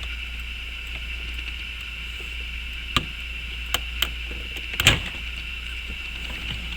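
A handful of sharp clicks as a pick pries the button out of a Pontiac Trans Am's automatic shifter knob, the loudest about five seconds in, over a steady hum.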